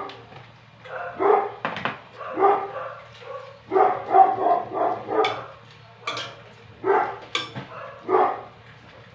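Dogs barking repeatedly in short, irregular runs, set off by someone being there.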